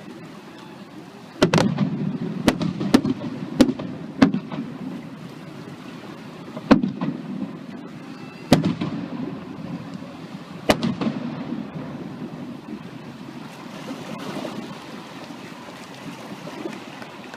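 Aerial firework shells bursting in sharp bangs, each followed by a rumbling tail. About six bangs come in quick succession a second or so in, then single bangs follow every couple of seconds, and the rumble dies down toward the end.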